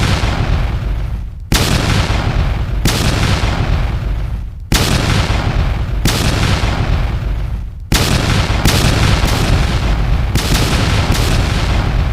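Dubbed-in boom sound effects played over and over: loud, sudden booms with a deep rumble, a new one every one to two seconds, each fading out before or as the next one cuts in.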